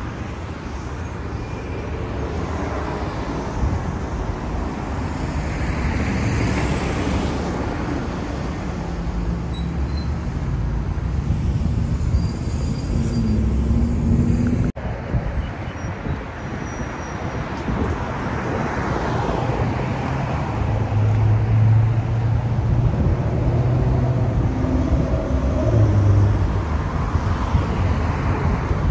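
Road traffic: cars and trucks passing on a multi-lane road, a steady low engine rumble with vehicles swelling up and fading as they go by. The sound breaks off abruptly about halfway through and picks up again.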